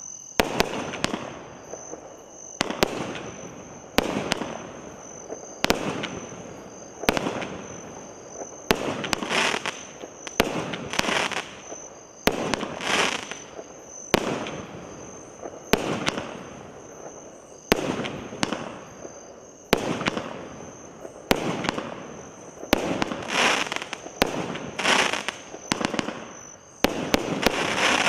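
A 19-shot aerial fireworks cake firing shot after shot, a sharp bang about every one and a half to two seconds. Several shots trail off into crackling from the crackling-rain effects.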